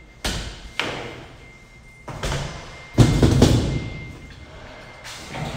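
Knocks and hollow bangs of a rectangular galvanized sheet-metal duct section with a flange frame being tipped over and set down upright on a concrete floor. Several separate knocks, with the loudest cluster about three seconds in.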